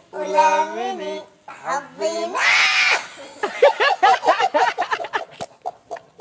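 A man's voice, electronically pitched up by the sound engineer so it comes out shrill, like a cat or child, holds a sung note. About two seconds in comes a shrill squeal, then a burst of men's laughter.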